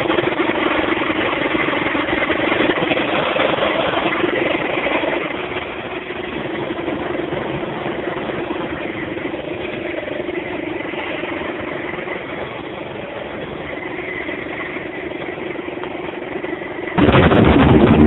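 1971 Chrysler 70 hp two-stroke outboard motor running steadily, a little quieter after about five seconds. Near the end a much louder noise cuts in suddenly.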